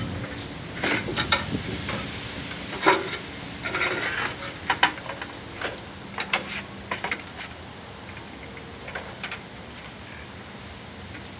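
Aluminum siding sheet being slid and positioned in a portable sheet-metal brake: scattered clicks, taps and light metallic rattles that thin out after about seven seconds.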